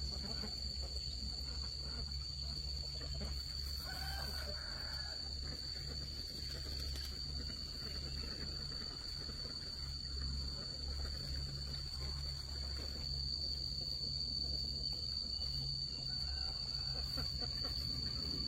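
Insects trilling steadily as one continuous high tone over a low rumble, with a brief faint call about four seconds in.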